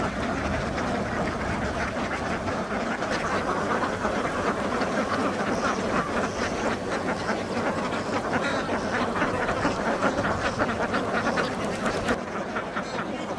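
A large flock of domestic ducks quacking continuously, many calls overlapping into a steady chorus.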